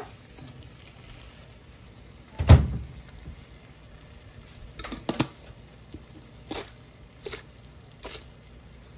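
Jarred tomato pasta sauce being emptied from a glass jar into a skillet of sausage and cream cheese: one dull, heavy thump about two and a half seconds in, then several light clicks and taps of the jar and a metal spoon against the pan.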